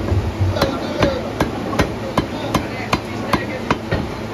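A heavy cleaver chopping chicken on a wooden chopping block, with steady, even strokes about two and a half times a second.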